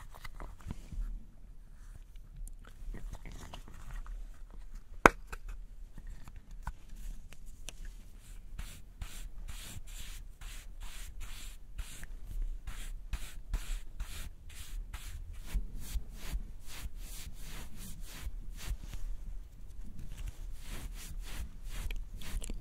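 Close-up scratching of a small makeup brush worked in a pressed blush powder compact, a quick even rhythm of about three strokes a second. One sharp plastic click about five seconds in, as the compact's lid snaps open.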